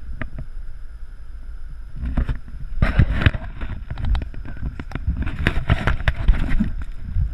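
Water splashing and slapping in a run of sharp bursts, starting about two seconds in, as a large white sturgeon held alongside the boat kicks its tail in the river, over a steady rumble of wind on the microphone.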